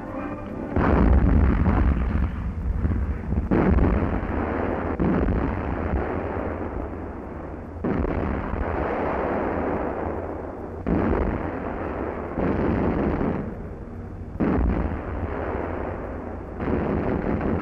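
Warship anti-aircraft guns firing in about seven sustained bursts, each one to three seconds long, with short lulls between them, heard on a 1940s newsreel soundtrack that lacks the highs.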